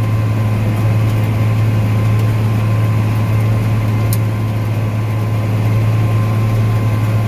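John Deere 8300 tractor's six-cylinder diesel engine running steadily under load, a constant low drone heard from inside the cab.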